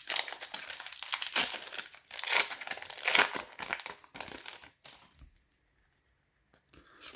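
Foil wrapper of a Pokémon booster pack crinkling and tearing as it is opened by hand, a dense crackle for about five seconds that then stops, leaving near silence and a faint click near the end.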